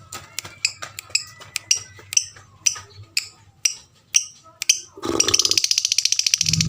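Lovebird calling with short, sharp chirps about twice a second, then breaking into a fast, continuous chattering trill about five seconds in.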